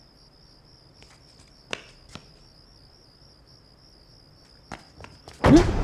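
Crickets chirping steadily as quiet night-time background, with a few faint knocks. A sudden loud burst of sound starts near the end.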